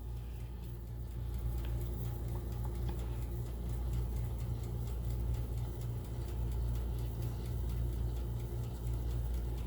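Countertop toaster oven running: a steady low electrical hum with faint, even ticking, typical of the oven's timer counting down.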